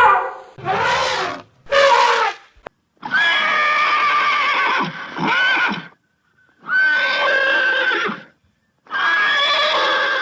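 An equid, a horse or zebra, neighing in a series of about six calls. Two short calls come in the first two seconds, then longer calls with gaps between them, the last running past the end.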